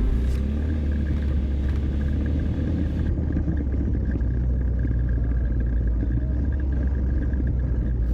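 ATV engine running during a trail ride, a steady low rumble.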